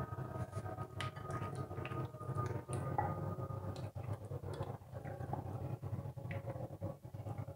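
A hand squishing chicken drumsticks through a thick batter coating in a glass bowl, making irregular wet squelches and small clicks, over a steady low hum.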